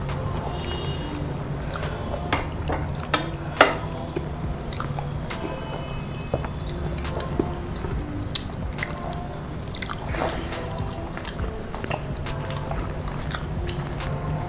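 Close-miked mukbang eating: wet chewing and lip-smacking as rice and curry are eaten by hand, with scattered sharp mouth clicks, the loudest a little over three seconds in.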